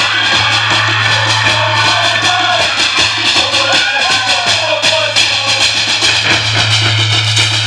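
Live Pacific Island group performance: a fast, steady drumbeat with voices singing over it and a steady low hum underneath.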